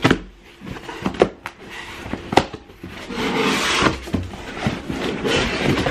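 Cardboard shipping box being handled and opened by hand: several sharp knocks and scrapes of the cardboard, with a rough rustling-scraping noise lasting about a second a little after the middle.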